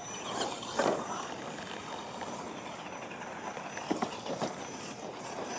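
Radio-controlled monster trucks driving over a dirt track and wooden jump ramps, with a few sharp knocks as tyres and chassis strike the ramps: one about a second in and two close together near four seconds.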